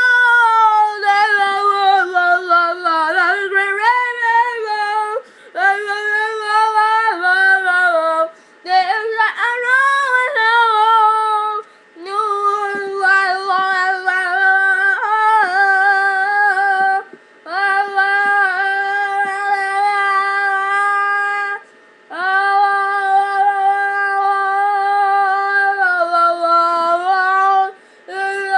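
A high voice wailing in long held notes without words, each lasting a few seconds with short breaks between, the pitch wavering and sliding at the start of some notes.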